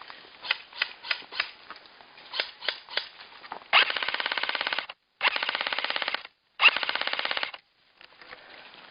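Airsoft electric gun firing three rapid full-auto bursts of about a second each, after a few scattered single pops of shots.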